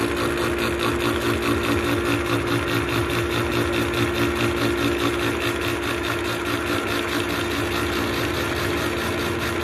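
Milling machine running with a disc-type gear-milling cutter cutting a tooth slot into a duralumin spur-gear blank: a steady machine hum with a constant tone and a fast, even pulsing.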